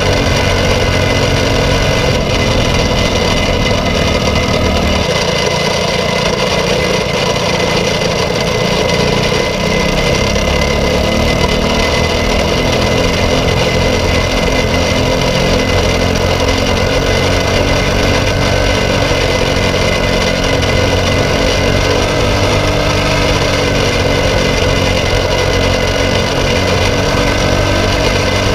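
Briggs & Stratton LO206 four-stroke single-cylinder kart engine running flat out under race load, recorded onboard. Its note drops and climbs again about five to ten seconds in, then keeps rising and falling with the corners.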